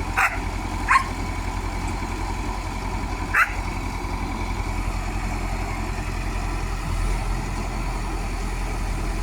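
Heavy diesel engine running steadily, with a dog barking three times in the first few seconds.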